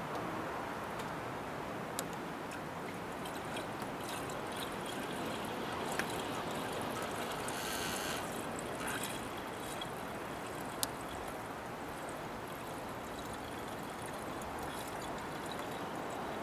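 Red antifreeze coolant pouring steadily from a plastic jug through a funnel into a truck's cooling system as it is refilled, with a few light clicks.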